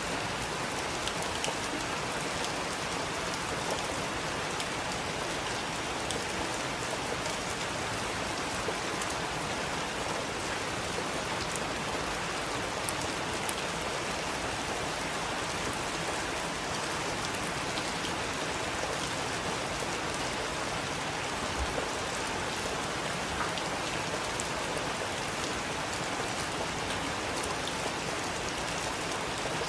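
Heavy rain falling steadily, an even hiss with scattered sharp drop ticks.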